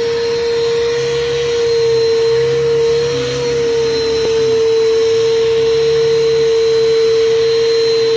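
Small canister wet/dry shop vacuum running steadily with a high motor whine while the car's interior is vacuumed. Its pitch rises briefly about three seconds in, as the suction load changes.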